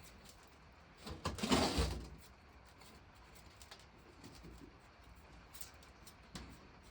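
A brief scraping, rustling noise lasting about a second, starting about a second in, as debris is worked out of an old engine water pump, followed by a few light clicks of handling.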